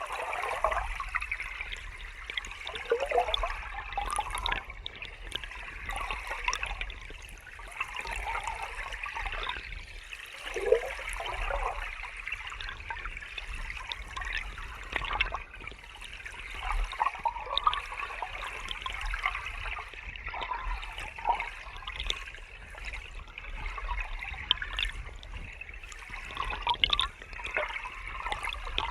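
River water flowing steadily over rocks, a continuous rushing wash with bubbling gurgles throughout.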